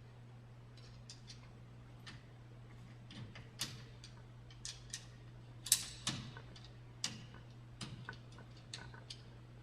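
Irregular sharp metallic clicks and taps, the loudest a little under six seconds in, as the master link of a StairMaster StepMill's steel step chain is worked apart by hand.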